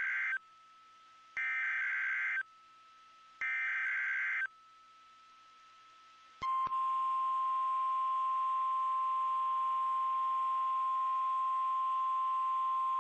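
Emergency Alert System SAME header data bursts, three one-second electronic warbles a second apart. About six and a half seconds in, a steady NOAA Weather Radio 1050 Hz alert tone starts and holds, marking the start of a new alert message.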